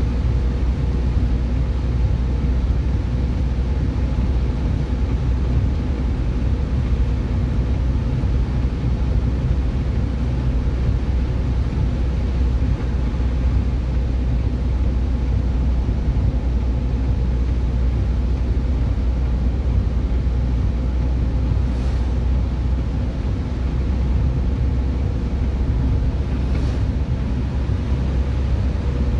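Steady low rumble of a car's engine and tyres heard from inside the cabin, with the hiss of tyres on a rain-wet road.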